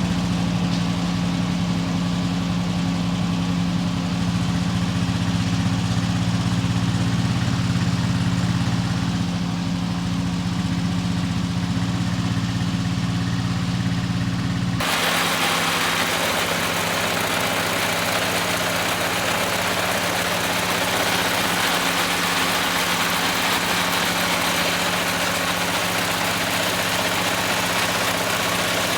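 Kubota L3200 compact tractor's three-cylinder diesel engine running steadily while baling hay with a Farm Maxx mini round baler. About halfway through the sound changes abruptly and becomes noisier, with more hiss above the engine's hum.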